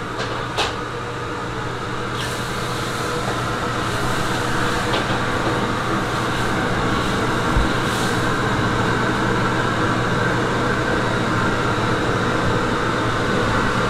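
Steady kitchen-machinery drone with a low hum, slowly growing a little louder, with a few light clicks in the first second.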